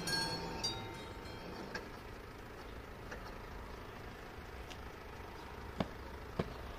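Mechanical bell of a railway level crossing strikes twice right at the start and then stops as the barriers come down. A car engine idles low in the background, and two sharp clicks come near the end.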